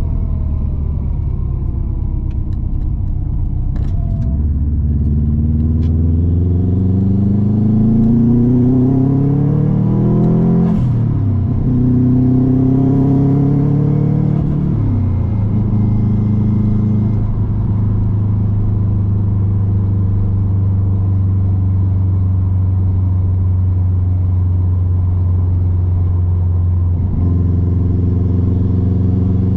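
Turbocharged Subaru WRX flat-four accelerating through the gears, heard from inside the cabin. The engine note climbs, drops sharply at a gear change about eleven seconds in with a short hiss from the blow-off valve venting, climbs again, drops at a second shift around fifteen seconds, then holds steady at cruise.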